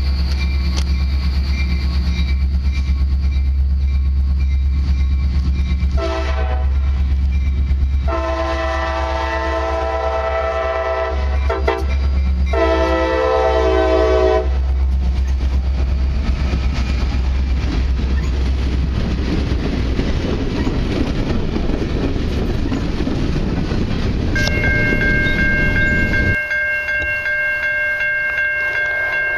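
CSX diesel freight locomotives approach and pass. The horn sounds four blasts, long, long, short, long (the grade-crossing signal), while the engines rumble, and then the freight cars roll by with wheel noise. Near the end a crossing signal bell rings steadily.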